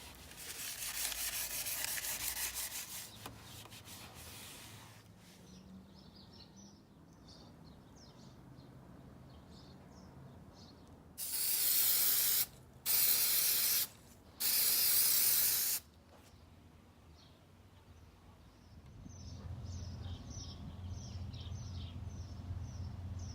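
Aerosol can of black spray paint spraying in three hissing bursts of about a second each, close together, with a softer hiss earlier on and faint chirps in between.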